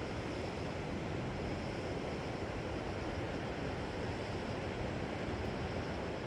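Ocean waves washing on the shore, a steady rush of surf with no single wave standing out.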